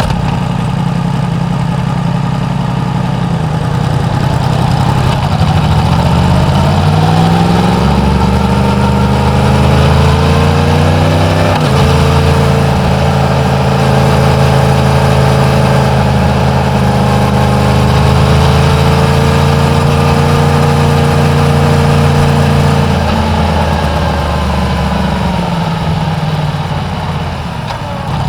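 Yamaha MT-10's crossplane inline-four on its stock exhaust, first running low and steady, then revving up as the bike pulls away. It shifts up once with a sudden drop in pitch, holds a steady pitch while cruising, and falls back toward idle near the end.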